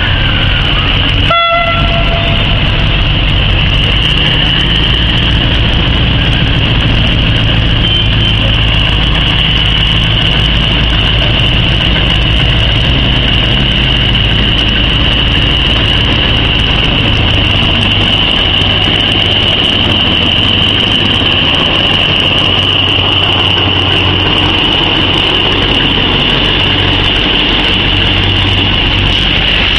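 Diesel freight train approaching and rolling past, its low rumble steady under a continuous high-pitched level-crossing warning tone. A brief horn toot sounds about a second and a half in.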